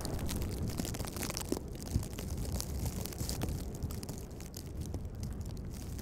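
Blizzard wind buffeting the microphone: a steady low rumble with scattered light ticks, easing slightly near the end.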